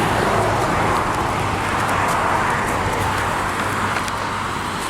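Road traffic: a vehicle passing by with a rushing tyre noise that swells and then eases off.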